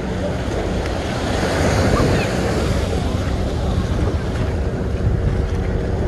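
Small ocean waves breaking and washing up the shore in a steady rush, with wind buffeting the microphone. The surf swells about two seconds in.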